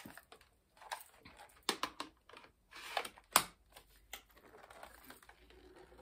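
Hard plastic clicks and knocks as the battery pack of a cordless stick vacuum is handled and slotted into the vacuum's main body, the loudest knock a little past the middle.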